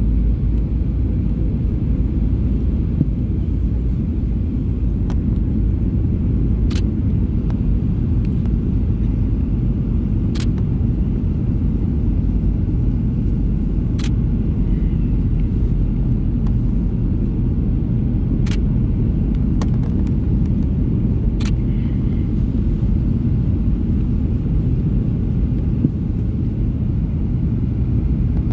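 Steady low rumble of engine and airflow noise inside the cabin of a Boeing 737-800 on descent, heard from a window seat behind the wing. A few faint sharp clicks are scattered through it.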